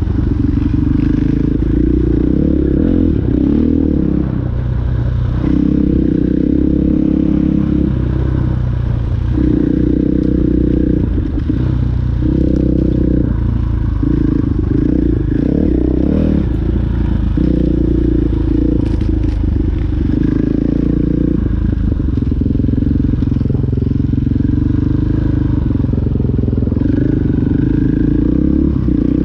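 KTM 500 enduro bike's single-cylinder four-stroke engine running while being ridden, its note rising and falling every second or two as the throttle is opened and rolled off.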